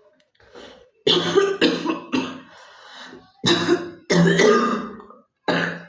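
A girl coughing in two fits: three hard coughs close together, a short pause, then three more, the middle one drawn out.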